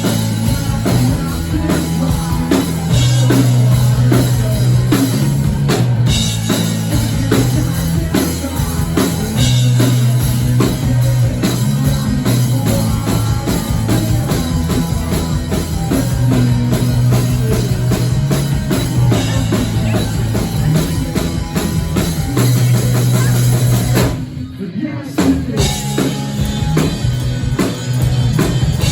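Rock band playing live: drum kit keeping a steady beat under bass guitar and electric guitars. Near the end the band drops out briefly for about a second, then crashes back in.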